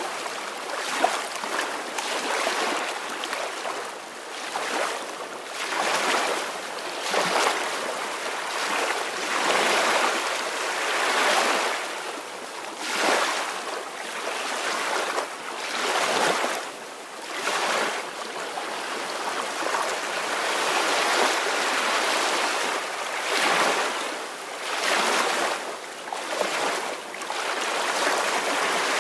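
Soft ocean waves washing onto the shore, a continuous hiss of surf that swells and eases every couple of seconds.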